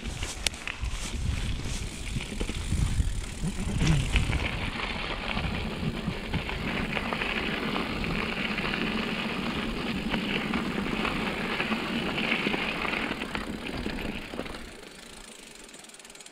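Rushing wind and rolling movement noise on a moving action camera, with scattered knocks in the first few seconds. The noise drops away sharply about fifteen seconds in.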